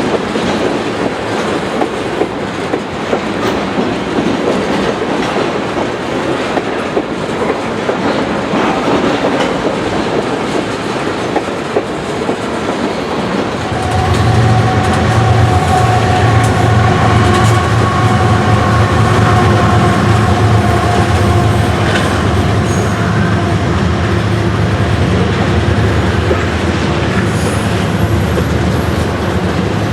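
Freight train rolling past, its wheels clicking over rail joints. About halfway through, a louder diesel locomotive engine drone comes in close, with steady whining tones above it.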